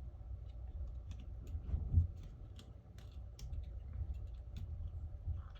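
Irregular light clicks and taps of small phone parts and tools being handled during a smartphone repair, over a low steady rumble, with a slightly louder bump about two seconds in.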